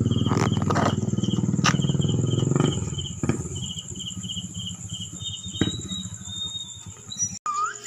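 Night insects: crickets chirping at an even pace of about four chirps a second over a steady high trill. A louder low, motor-like drone dominates the first two and a half seconds and then fades, with a few scattered clicks.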